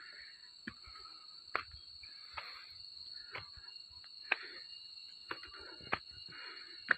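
Footsteps climbing a steep rocky dirt path, a sharp step about every second with some rustling of plants, over a steady high drone of insects.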